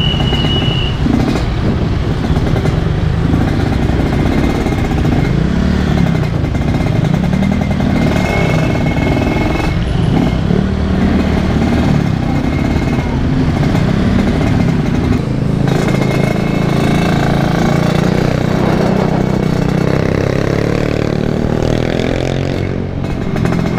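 Yamaha RX-King two-stroke single-cylinder engine running while riding in slow, dense traffic, its revs rising and falling repeatedly as the throttle is opened and closed.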